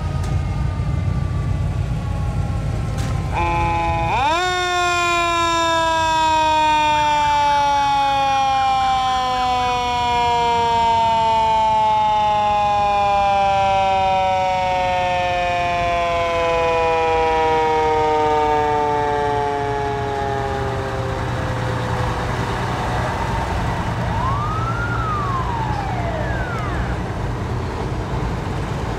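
A vintage fire truck's siren winds up sharply about four seconds in, then falls slowly and evenly in pitch for about seventeen seconds as it coasts down, the way a mechanical siren does, over the low rumble of the trucks' engines. A short rising-and-falling tone follows near the end.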